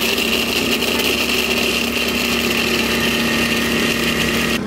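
Countertop blender motor running steadily at speed, blending a thick fruit drink.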